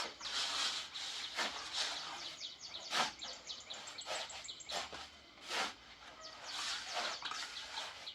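Small birds chirping rapidly and over and over, with a knock or scrape every second or two.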